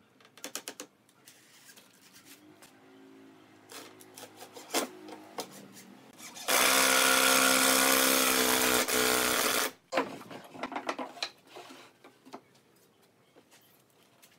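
Cordless drill running for about three seconds as it bores or drives into a pine frame. Before and after it come light knocks and clicks of wood pieces being handled on the bench.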